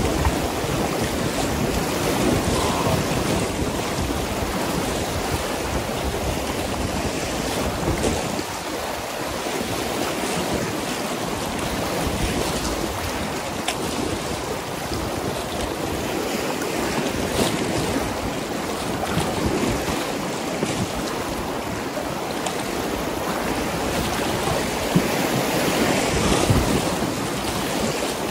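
Whitewater of a river rapid rushing steadily, with wind rumbling on the microphone.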